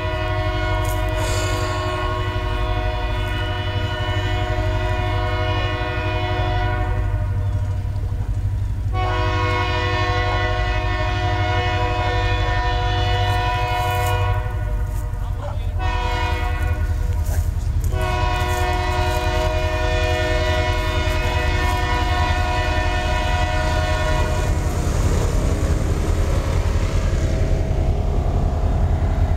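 Diesel locomotive horn of an L&C GP38-3 sounding the grade-crossing signal from a distance: two long blasts, a short one, then a long one, over a steady low rumble. After the last blast the rumble of the oncoming train grows.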